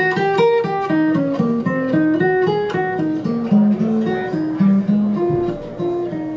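Solo flat-top acoustic guitar playing a jazz-standard-style tune: a quick line of picked single notes and chords, stepping down into the low register around the middle.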